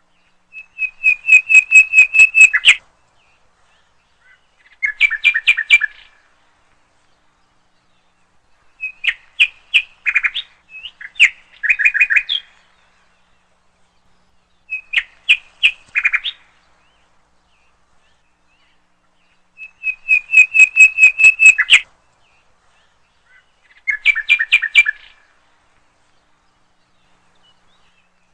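A bird singing: seven short bursts of rapid repeated chirps, each one to two seconds long, a few seconds apart.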